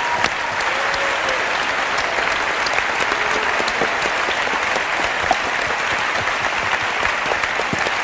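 A large theatre audience applauding steadily: a dense, even patter of many hands clapping.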